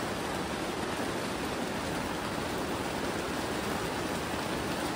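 Rain falling steadily, an even hiss with no change in strength.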